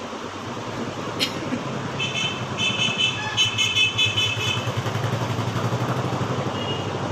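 Road traffic: a motor vehicle's engine running with a steady, slightly pulsing low hum. A cluster of short high-pitched tones sounds from about two seconds in, with a single click just before.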